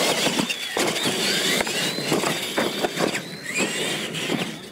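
Two electric R/C monster trucks launching off the start line and racing on dirt. Their motors and gears make a high whine that rises and falls as they speed up and ease off, with tyre noise and short knocks.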